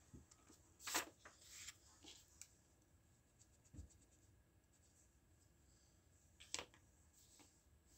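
Quiet handling sounds of a sheet of drawing paper being moved and rustled on a hardboard drawing board, with a few light clicks and taps from a pencil and eraser pen. The clearest rustle comes about a second in, a soft thud follows near the middle and a sharp click comes near the end, with near silence between.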